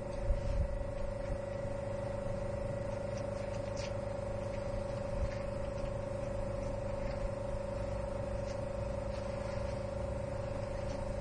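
A steady machine hum holding one constant tone over a low rumble, with a few faint clicks and some louder low knocks in the first second or so.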